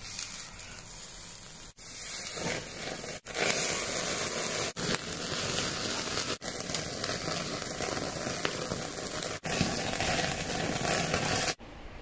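Pork belly sizzling and crackling on a wire mesh grill over charcoal, with fat flaring in the flames. The sizzle cuts out briefly and abruptly several times.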